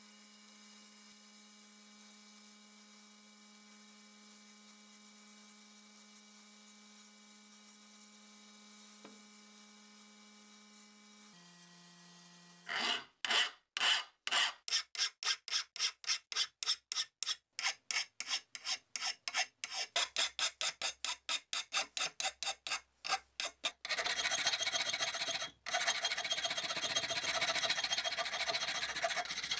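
Hand file rasping on a cast iron part held in a bench vise, in regular strokes about three a second, then a faster, continuous scraping near the end. A steady low hum comes before the filing starts.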